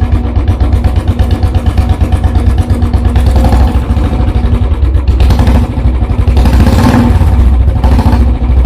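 Royal Enfield Bullet single-cylinder engine running with a fast, even thumping exhaust beat, swelling a few times as the throttle is blipped.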